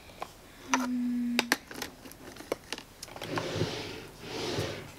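Small makeup items clicking and tapping as they are set into a drawer, then an IKEA Alex drawer sliding on its metal runners, a rushing sound in two pushes near the end.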